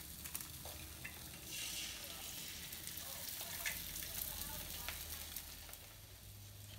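Eggs frying in oil on a nonstick electric griddle: a soft, steady sizzle that grows louder about a second and a half in as a second egg goes onto the hot plate, with a few faint clicks.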